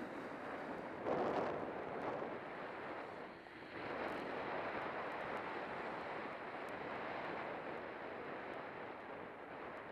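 Wind rushing over the camera's microphone during a fast descent of a groomed ski run, with the hiss of edges sliding over packed snow. It gets louder about a second in.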